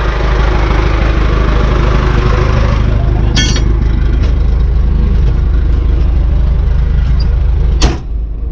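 Old John Deere engine running steadily, with a sharp clank about three seconds in and a louder bang near the end.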